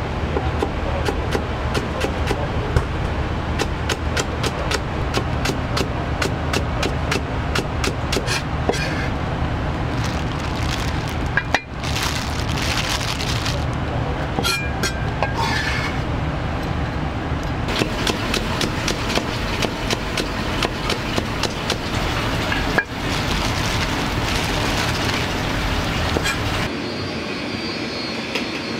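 Stir-frying in a restaurant kitchen: a high-power gas wok burner gives a steady rush while a metal ladle clanks rapidly against the wok and food sizzles in the hot oil.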